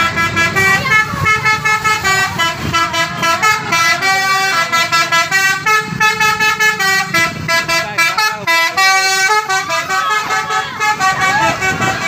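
Basuri telolet horn on a tour bus playing a fast, tuneful run of short horn notes that step up and down in pitch without a break.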